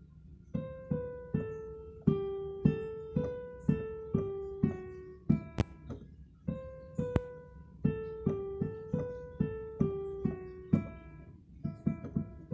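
Electronic keyboard with a piano sound playing a melody of single struck notes, about two a second, over lower notes, starting about half a second in.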